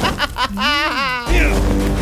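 Background music with a steady low bass and held tones. About half a second in, a cartoonish voice laughs briefly over it, its pitch wavering quickly.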